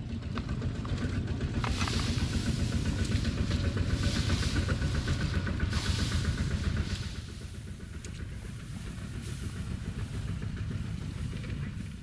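A small engine running with a rapid, rough low pulse, quieter after about seven seconds, with a few short hissing bursts over it.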